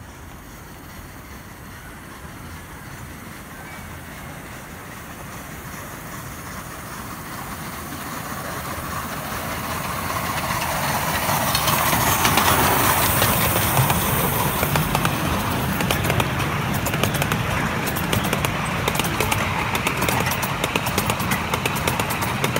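Miniature A4-style steam locomotive and its passenger carriages approaching, growing louder until they pass close about halfway through, then the carriages running by with rapid clicking of wheels over the track.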